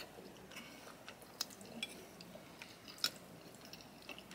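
A person chewing a mouthful of chicken Alfredo pasta, soft mouth sounds with a few short sharp clicks.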